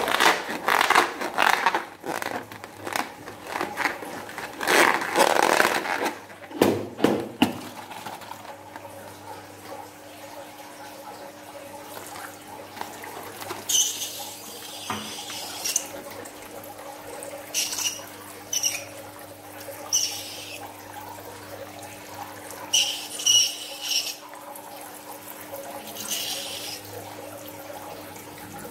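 Coloured liquid squeezed out of a latex balloon, splashing and gurgling into a glass bowl in several loud gushes during the first eight seconds. After that come shorter hissing squirts from the balloon's neck every few seconds.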